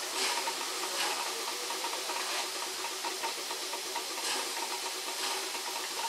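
Steam hissing steadily from a standing LNER A4 Pacific steam locomotive, 4464 Bittern, with a faint steady tone underneath.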